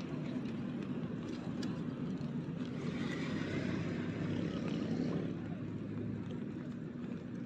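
A steady low engine drone that holds its level throughout.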